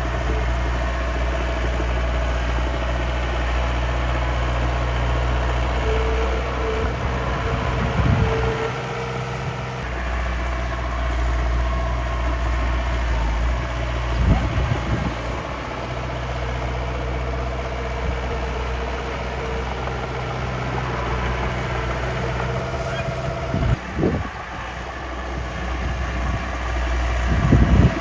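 Engine of a miniature dump truck and bulldozer running steadily, its pitch and level shifting a few times. Brief louder bursts come about 8, 14, 24 and 27 seconds in.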